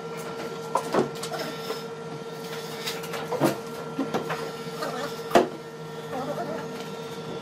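Wooden wardrobe panels knocking and bumping as they are set upright and butted together by hand, with three sharper knocks spread through. A steady machine hum runs underneath.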